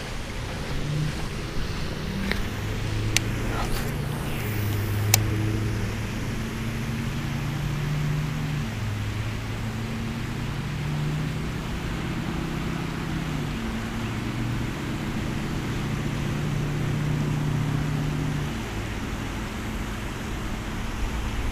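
A motor humming in the background, its pitch shifting up and down in steps. There are a few sharp clicks in the first five seconds.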